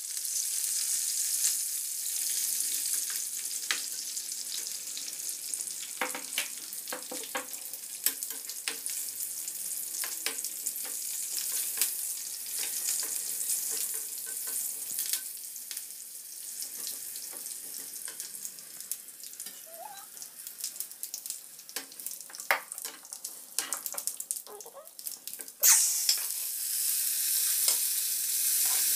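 Tempering sizzling in hot oil in a small pan, with garlic, mustard seeds, chillies and curry leaves crackling and popping while a spatula stirs and scrapes. About 26 seconds in the sizzle flares up suddenly and loudly and stays louder, as the dal with moringa leaves goes into the hot tempering.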